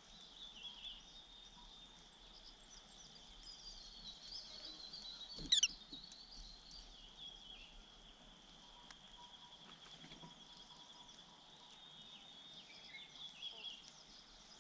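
Faint high chirping and twittering of white-eyes at the nest over a steady high-pitched drone. A single sharp, loud falling note cuts in about five and a half seconds in.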